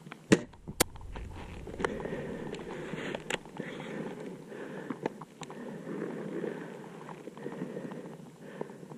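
Two sharp clicks about half a second apart near the start, then steady rustling and crunching of dry grass and ghillie-suit gear with scattered light clicks, as someone crouches and moves through dead grass.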